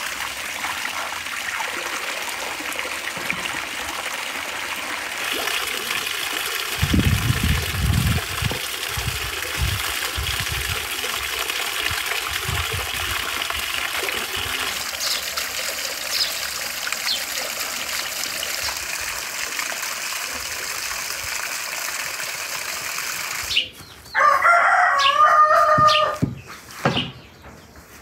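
Water from a stone garden fountain splashing and trickling steadily while vegetables are rinsed in its basin, with a few low thuds about seven to ten seconds in. Near the end a rooster crows loudly once, for about two seconds.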